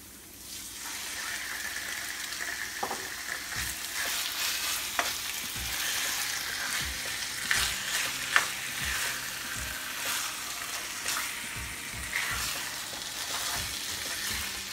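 Raw chicken thigh pieces sizzling in hot oil with garlic and ginger in a nonstick frying pan; the sizzle swells up within the first second or so as the chicken goes in. A plastic spatula scrapes and taps against the pan many times as the pieces are stirred.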